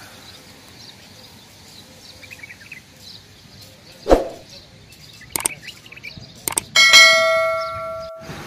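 Subscribe-animation sound effects: a pop about four seconds in, a few mouse-click sounds, then a notification bell ringing about seven seconds in and dying away over a second or so. Faint bird chirps come before the pop.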